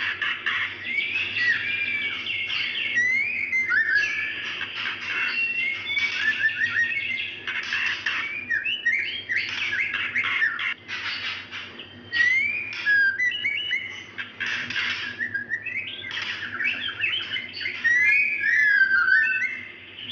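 Female white-rumped shama calling to a male in breeding condition: a continuous run of short whistled notes sliding up and down, mixed with harsh scratchy notes.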